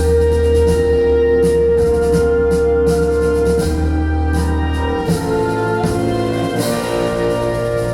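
Instrumental music with a heavy bass line, held keyboard notes and drum and cymbal strokes, played back through Grundig Super HiFi Box 2500 speakers from a Kenwood DP-1050 CD player and Marantz PM5005 amplifier. The bass line changes about five seconds in.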